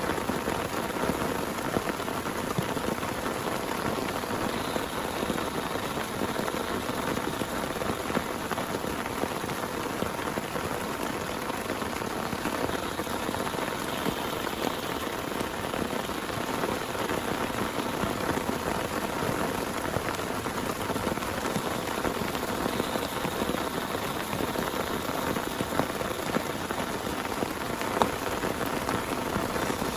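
Steady rain falling, an even wash of drops hitting a surface.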